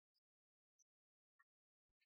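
Near silence, broken only by a few very faint short ticks.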